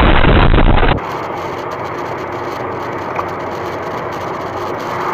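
A loud, rough noise cuts off suddenly about a second in. It gives way to the steady road and engine noise of a car driving on a highway, heard from a dashcam inside the car.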